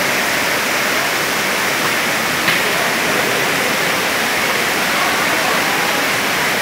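Heavy rain pouring down onto flooded ground and standing water: a loud, steady rush. One brief sharp click about two and a half seconds in.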